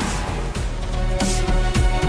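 Background music with a drum beat of about two hits a second that comes in about a second in.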